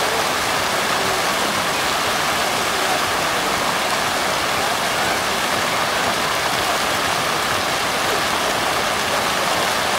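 Fountain jets splashing steadily into a wide stone basin, a continuous rushing hiss of falling water.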